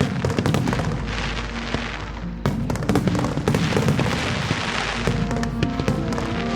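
Aerial fireworks bursting and crackling in a dense run, with a sharp loud burst about two and a half seconds in, under a low rumble of booms. Music with held notes plays along.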